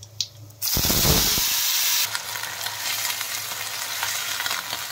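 Cauliflower florets going into hot mustard oil in an iron kadhai, setting off a sudden loud sizzle about half a second in. After about a second it eases into steady frying and crackling.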